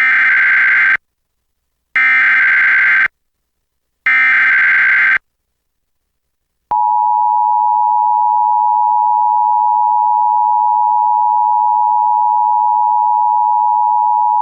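Emergency Alert System tones for an avalanche warning: three one-second SAME header data bursts, a harsh digital screech about a second apart, encoding the warning. After a short pause, the steady two-tone EAS attention signal begins about seven seconds in and holds.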